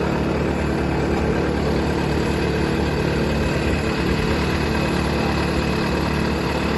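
Engine of a solar pile driver running steadily, with a constant low hum and no distinct hammer blows.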